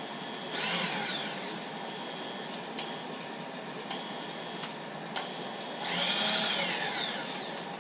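Servo power feed motor driving a Lagun milling machine's table, whining in two short runs with its pitch sliding up and down as the speed is adjusted. A few sharp clicks of the controls come between the runs.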